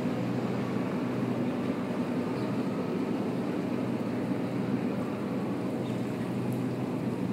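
Steady street ambience of slow electric taxis on a wet road: an even low hum with a hiss of noise over it and no distinct events.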